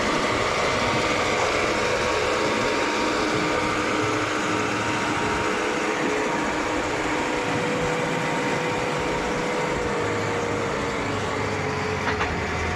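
Loader's diesel engine running with its hydraulic concrete mixer attachment working, a steady mechanical noise with a constant whine over it. A deeper engine hum comes in near the end, with a brief click just before the end.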